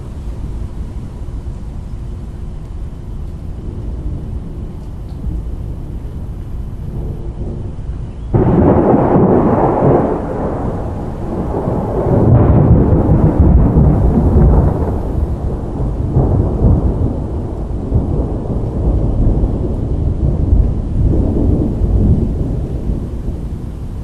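Thunder during a severe thunderstorm: a sudden crack about eight seconds in, rolling on in long, deep rumbles that swell again a few seconds later, over a steady background of storm noise.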